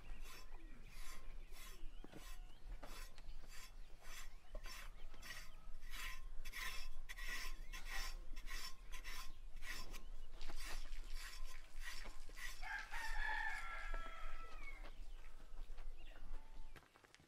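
Rhythmic rasping strokes of a grooming tool on a calf's coat, a little over two a second. About thirteen seconds in, a rooster crows once.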